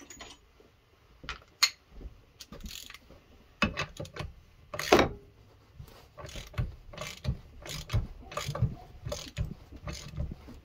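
Ratchet wrench clicking in short, irregular strokes as a lug nut, run on backwards over washers, is tightened to draw a new wheel stud into a Mopar 8¾ axle shaft flange.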